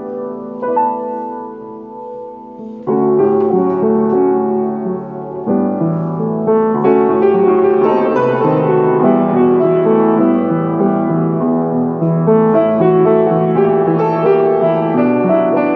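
Solo upright piano playing a slow ballad arrangement: soft held chords, then fuller, louder playing with many notes from about three seconds in.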